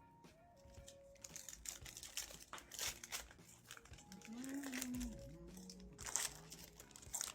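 Foil trading-card pack wrappers crinkling and tearing as packs are ripped open, in irregular bursts with the loudest near the end.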